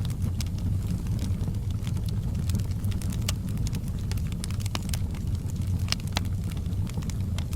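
Wood fire crackling in a fireplace: a steady low rumble with scattered sharp pops and snaps, several a second.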